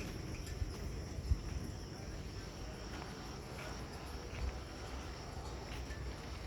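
Insects trilling steadily in a high register over a low background rumble, with a single short thump about a second in.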